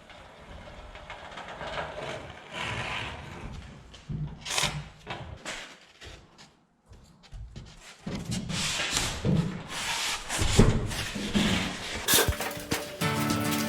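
Irregular rubbing and scraping with scattered knocks from rigid foam insulation board being handled and fitted into a garage door panel. Music comes in near the end.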